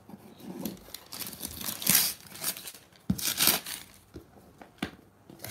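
Packing tape and cardboard on a parcel being cut with scissors and torn open, heard as several short bursts of tearing and crinkling. There is a light knock of the box being handled about three seconds in.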